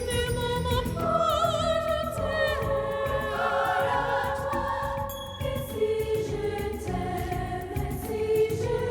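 Music with choral singing: sustained voices holding long notes with vibrato over a steady accompaniment.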